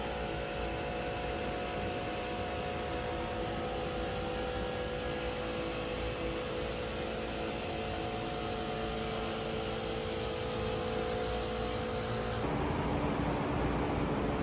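Steady workshop hum and hiss with several constant tones, changing abruptly about twelve seconds in.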